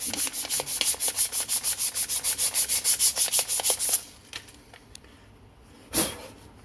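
Hand sanding with 220-grit sandpaper on the oxidized plastic top cover of a Husqvarna 2100 chainsaw: rapid, even back-and-forth scraping strokes, several a second, smoothing out the coarser 150-grit scratches. The strokes stop about four seconds in, and a single sharp knock follows about two seconds later.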